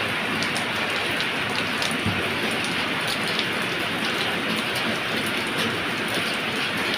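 Heavy rain falling steadily, a constant hiss with scattered drops ticking through it.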